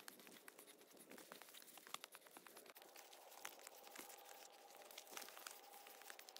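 Faint crunching and crackling of footsteps and movement on a rough hillside path, in small irregular clicks.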